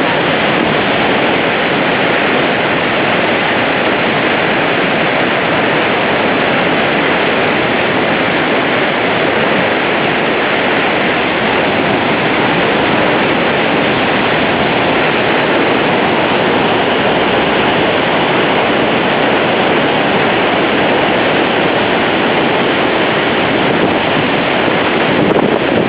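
Horseshoe Falls at Niagara: the loud, steady rush of a huge volume of falling water and spray, heard from a boat in the churning basin at its foot.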